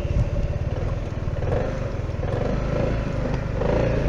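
SYM Maxsym 400 scooter's single-cylinder engine running on the move, its note rising and getting louder near the end. After the final-drive repair it rides without the metallic rear knock.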